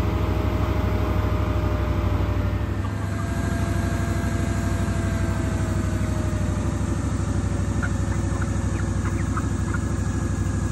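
12-inch 12-volt electric radiator pusher fan running steadily, powered straight from a solar panel: a constant hum with a rapid flutter from the blades. Chickens give a few soft clucks near the end.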